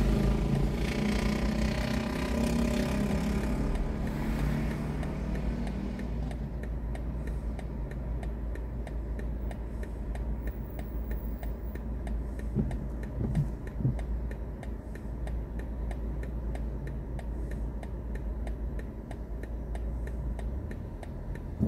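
A car's turn-signal indicator ticks steadily in the quiet cabin of a BMW i4 M50 waiting at a traffic light. A lorry and a motorcycle pass in front with a low engine rumble during the first few seconds.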